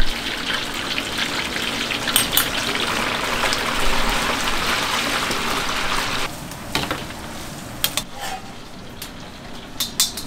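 Food frying in hot oil, a steady sizzle that cuts off suddenly about six seconds in, followed by a few light clicks and clinks.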